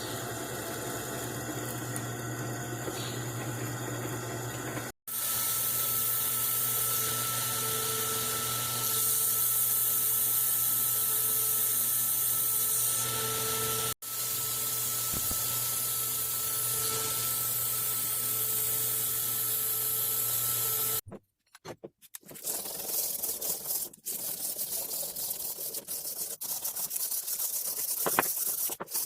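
A shop power tool running steadily, heard in several short edited clips with abrupt cuts between them. Near the end come irregular scratching, rubbing strokes.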